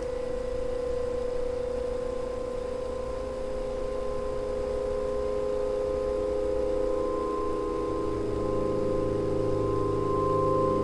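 Horror film score: a sustained, eerie drone of held tones. Lower notes join about eight seconds in, and the sound builds slowly in loudness.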